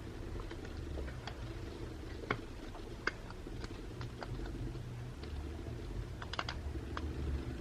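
Scattered light clicks and taps of small tools and parts on an opened smartphone's frame, about a dozen at irregular intervals, over a steady low hum.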